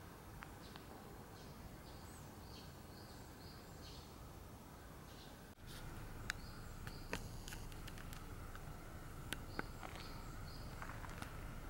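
Quiet outdoor background: a steady low rumble with faint short chirps. About halfway through the background steps up a little, and a few sharp clicks follow.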